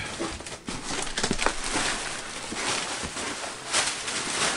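Clear plastic air-pillow packing crinkling and rustling as it is pulled out of a large cardboard box, with louder swells of crackling about a second in and again near the end.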